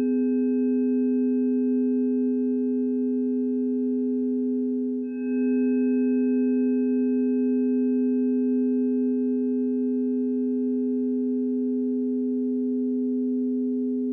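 A blend of steady, pure electronic sine tones held together: the planetary frequencies for the Sun, Mercury and Uranus conjunction. The tones dip briefly about five seconds in, swell back, and begin to fade near the end.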